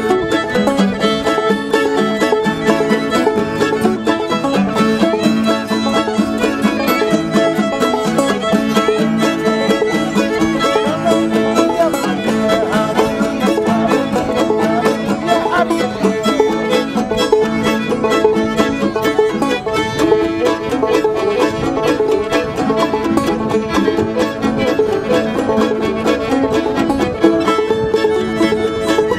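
Instrumental music, busy and continuous, with many quick notes.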